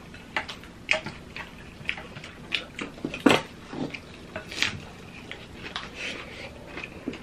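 Close-miked eating sounds: wet chewing and crunching of food, mixed with chopsticks and spoons clicking against bowls. The sharp clicks come irregularly, about one a second, and the loudest falls a little over three seconds in.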